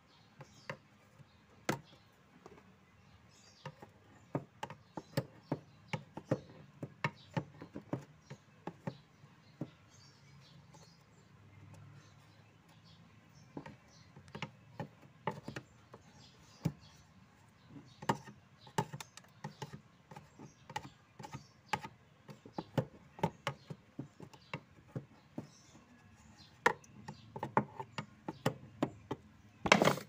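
A thin metal rod prodding and scraping inside a washing machine's clogged PVC drain pipe, making irregular clicks and taps, with a few louder knocks near the end.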